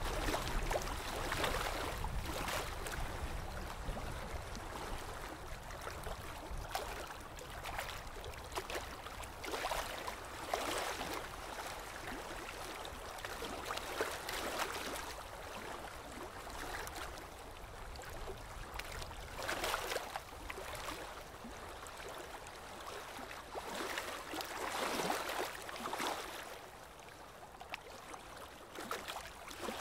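Water lapping and splashing in small irregular swells every second or two, over a low rumble that is stronger in the first few seconds and eases off later.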